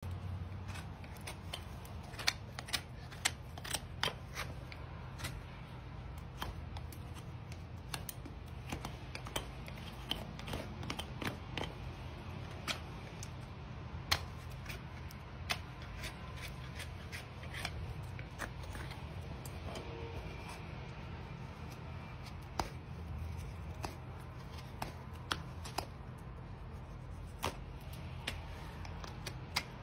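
Hoof knife paring the sole and frog of a horse's hoof: a run of crisp, irregular clicks and snaps as the horn is cut, over a steady low rumble.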